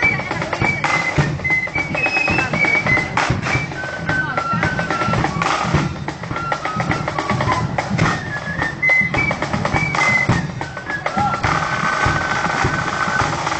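Marching band music: a high melody of short stepped notes over snare drum rolls and bass drum beats, ending on a long held note.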